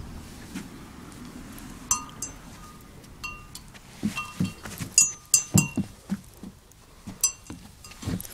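Playground spinner disc's metal pivot squeaking and clinking as it turns, in short ringing chirps with dull knocks under them, irregular and busiest about four to six seconds in.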